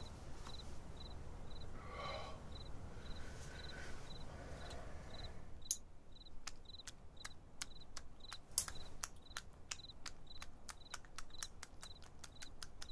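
A cricket chirping at an even pace, about two high chirps a second. From about halfway through, a run of sharp clicks joins it and comes faster and faster toward the end.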